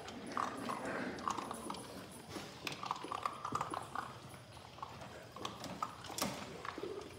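Several Labrador retriever puppies eating dry kibble from a stainless steel bowl: irregular crunching and chewing, with clicks and knocks as the bowl and kibble are nosed about.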